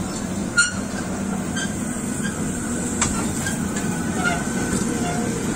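Small amusement-park kiddie train rolling past on its circular track: a steady rumble with a few sharp clicks, one about half a second in and another around three seconds.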